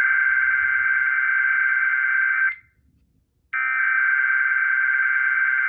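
Emergency Alert System SAME header data bursts, the warbling digital tones that open an EAS Required Weekly Test, received over FM radio. One burst cuts off about two and a half seconds in, and the next starts a second later.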